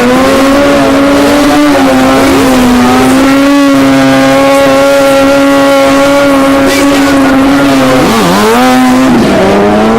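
Motorcycle engine held at high revs during stunt riding, its pitch steady for several seconds. The revs drop sharply just after eight seconds and climb back. Other motorcycle engines rise and fall underneath.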